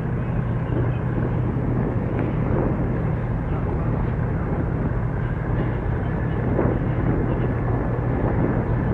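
Steady low engine hum of ships moving close by in the harbour, over a constant outdoor rumble and hiss.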